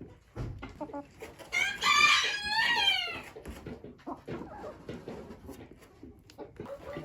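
A rooster crowing once, about a second and a half in, lasting about a second and a half and falling in pitch at the end, over quieter scattered sounds from the flock.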